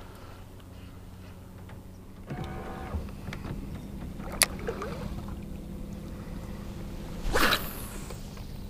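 Small electric trolling motor switched on about two seconds in, then running with a steady whine. A sharp click comes about halfway through, and a short swishing burst near the end.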